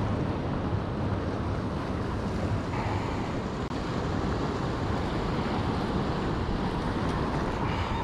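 Steady wind buffeting the microphone over ocean surf washing against coastal rocks.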